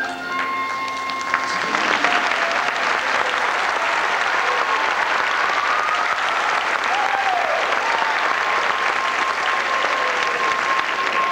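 Audience applauding at the end of a dance number: the music's last notes stop about a second and a half in, and steady clapping takes over.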